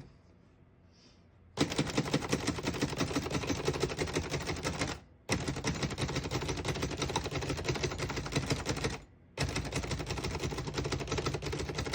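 1937 Underwood Noiseless Model 77 portable typewriter being typed on quickly, in three long runs of rapid keystrokes that start about a second and a half in, with two short pauses. Its noiseless action, keys that press like a punch instead of a slap, keeps each keystroke very muffled.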